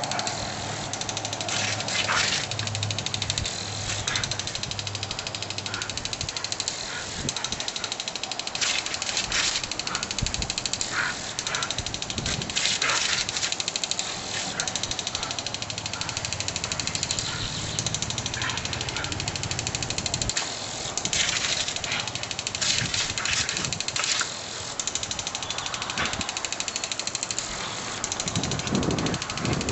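Water hissing steadily from a garden hose spraying onto a lawn, broken by frequent short splashes as a dog bites and plays in the stream, with a low hum under it for much of the time.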